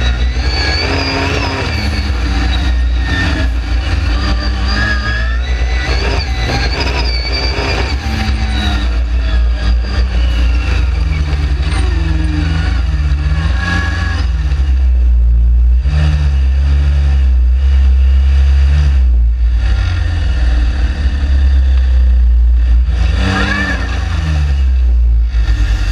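Dune buggy engine running under load, its pitch rising and falling as the throttle opens and closes while driving over sand, over a heavy rumble of wind on the microphone.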